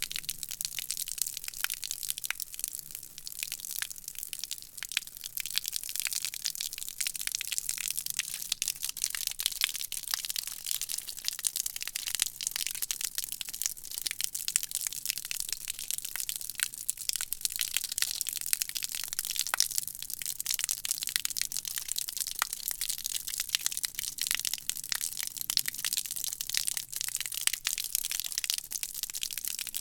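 A weak stream of water from a hose splattering and dripping onto concrete: a steady, dense crackle of small drops and splashes.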